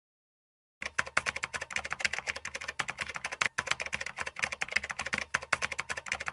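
Rapid typing on a keyboard: a dense, uneven run of key clicks that starts abruptly about a second in.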